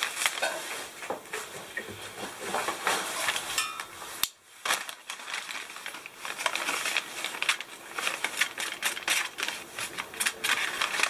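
White wrapping paper rustling and crinkling under the hands while a knife cuts raw bacon strips on it, with many short taps and clicks, and a brief pause about four seconds in.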